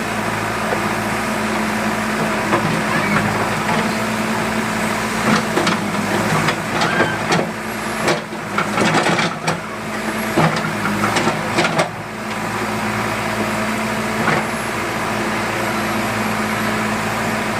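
JCB excavator's diesel engine running steadily, with a run of sharp knocks and clanks from about five to twelve seconds in.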